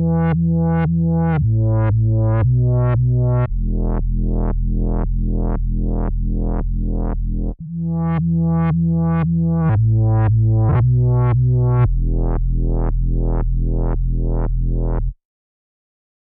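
Fender Jazz bass played through a Source Audio C4 Synth pedal patch: low synth-bass notes with a filter sweep that pulses about three times a second. A short riff of a few notes is played twice, and the sound stops about a second before the end.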